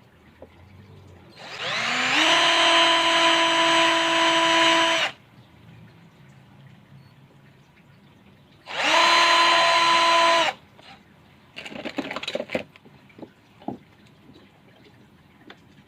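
Electric drill serving as the motor of a homemade wood lathe, spinning up with a rising whine and running steadily for about three and a half seconds, then running again for about two seconds. A short patch of clattering knocks follows.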